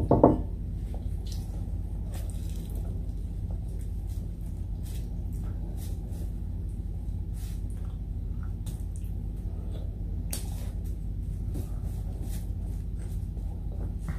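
Close-up eating sounds: faint wet chewing and mouth noises with scattered light clicks and crinkles of a plastic table sheet under the fingers, over a steady low hum. A short throaty sound, such as a gulp, comes right at the start.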